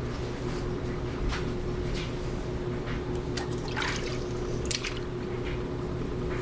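Running kitchen tap water as a small gas mask part is rinsed and rubbed under it, with irregular splashes and light clicks throughout.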